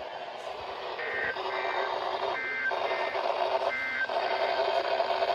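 Three short bursts of warbling two-tone SAME digital data, the end-of-message code that closes a NOAA Weather Radio alert, heard over a steady radio receiver hiss. The bursts come about a second in, then roughly every 1.4 s.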